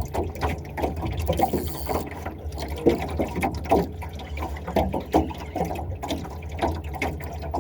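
Water lapping and gurgling against a boat hull in irregular small splashes, over a steady low hum.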